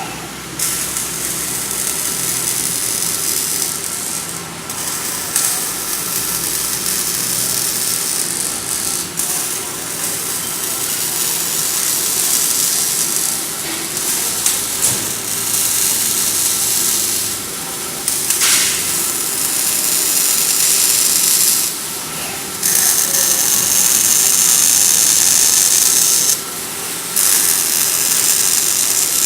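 Robotic arc welder running: a steady hiss of the welding arc that cuts out briefly and restarts a few times near the end, over a steady machine hum.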